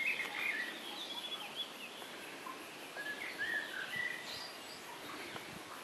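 Birds calling in the background: many short, irregular chirps and whistled notes over a faint steady hiss.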